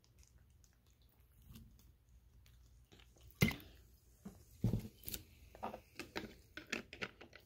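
A child's mouth noises right at the microphone after drinking from a soda bottle: faint at first, then a run of short clicks and smacks from about three seconds in.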